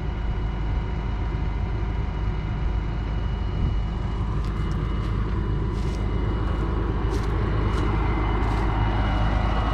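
Large diesel engine running steadily at a constant speed, with a few faint clicks partway through.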